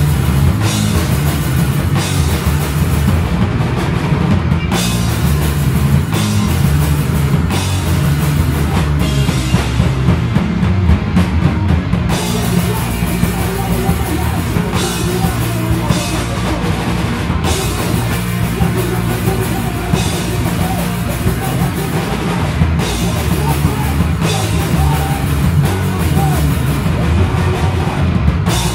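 Live rock band playing loud and without a break: electric guitar, bass guitar and drum kit, with frequent drum and cymbal hits.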